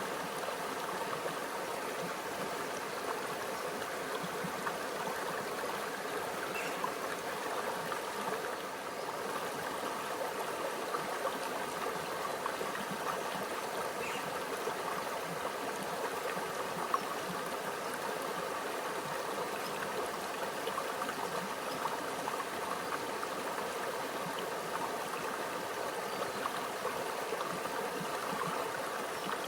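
A small stream running over rocks, a steady babbling, gurgling trickle of water.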